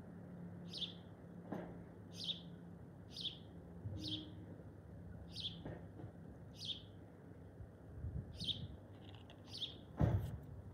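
A bird calling repeatedly, one short high chirp about every second, over a low steady hum, with a single sharp knock near the end.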